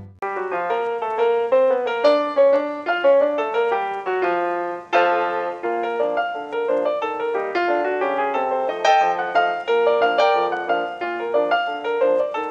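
Piano music: a brisk tune of quick, short notes, with a loud chord about five seconds in.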